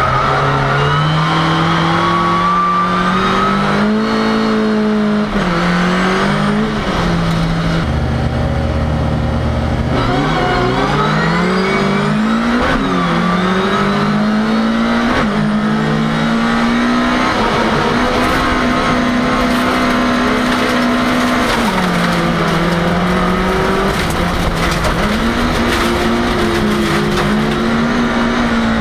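Ford Cortina race car's engine heard from inside the cabin, driven hard: the engine pitch climbs and drops back again and again as the driver accelerates, lifts and changes gear.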